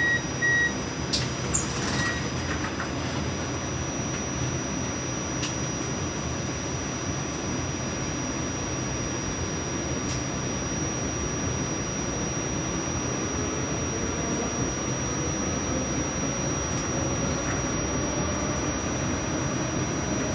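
Light-rail train running on the rails with a steady rumble, and a faint whine that rises slowly in pitch through the second half as the train picks up speed. Two short electronic beeps and a few sharp knocks come in the first two seconds.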